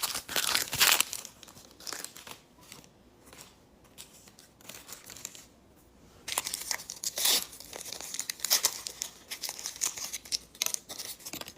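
Small plastic packaging crinkling and tearing as it is handled and opened: a loud spell in the first second, a few faint rustles, then more crinkling from about six seconds in.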